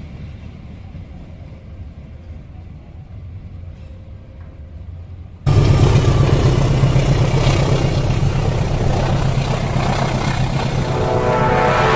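Passenger train coaches rolling along the track with a low rumble. About five seconds in the sound cuts suddenly to a KAI diesel-electric locomotive passing close by: a loud, steady, low engine drone over the noise of the wheels, with a few steady tones creeping in near the end.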